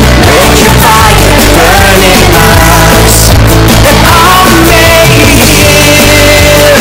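Loud rock-style background music: a melodic lead line sliding up and down over a dense, steady backing.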